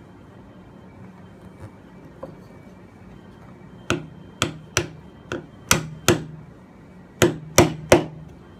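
Chisel struck with a hammer to chop into a wooden board: nine sharp, ringing blows in three quick groups of three, starting about four seconds in.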